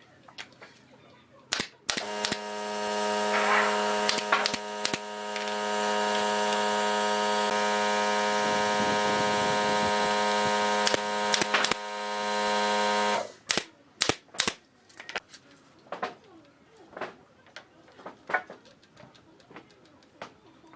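Wooden boards knocking and clicking against a pine frame as they are set in place by hand. A loud steady machine hum starts about two seconds in, runs for about eleven seconds and cuts off suddenly.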